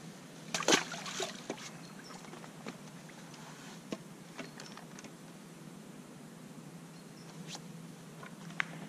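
A small common carp splashes and flaps as it is lowered into a keepnet, a short burst of sharp splashing under a second in. Scattered single clicks and taps of tackle being handled follow, over a steady low hum.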